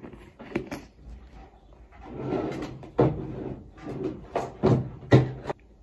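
Household handling noises: the plastic lid of a hair-mask jar being twisted, then several sharp knocks and clatters as containers are moved and set down on a table.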